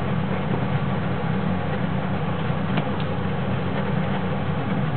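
Vegetable fritters deep-frying in oil in a small pot: a steady sizzle over a steady low hum, with a couple of faint clicks of the spatula against the pot about three seconds in.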